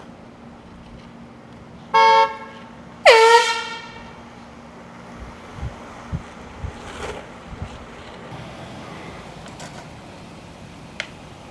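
Two blasts of a handheld air horn a second apart: a short one about two seconds in, then a longer, louder one that dips in pitch as it starts and then holds.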